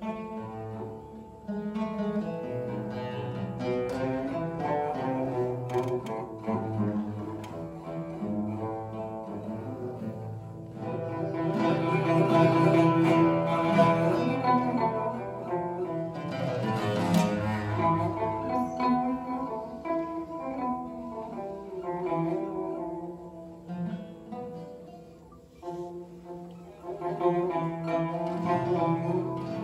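Oud and Turkish tanbur played together with plectra: a Turkish classical instrumental piece, plucked melody in unison, swelling louder around the middle.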